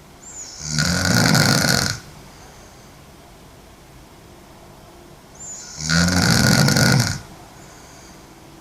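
A sleeping woman lying on her back snoring: two loud, rough snores about five seconds apart, each lasting about a second and a half.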